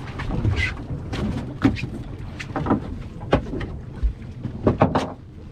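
Water slapping and knocking against a fishing boat's hull at sea, a dozen or so sharp irregular knocks over a steady low rumble.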